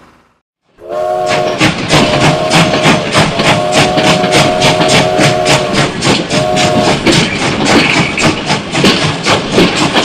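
Toy steam train chuffing with a rapid clicking rhythm of about four to five beats a second, its whistle sounding several times, the longest for about two seconds.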